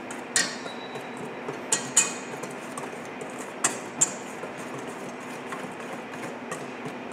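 Wire whisk stirring dry gram flour in a stainless steel bowl, with about five sharp metallic clinks where the wires strike the bowl's side.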